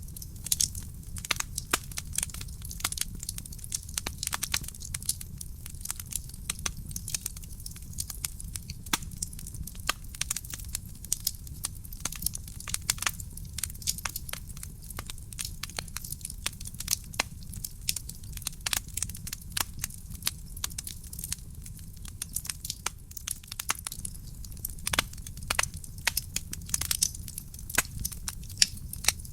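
Burning wood fire crackling and popping in a fireplace: many irregular sharp snaps over a steady low rumble of the flames.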